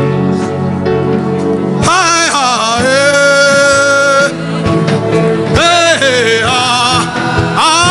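Gospel worship music: sustained keyboard chords over a low bass, then a voice singing long, wavering held notes from about two seconds in.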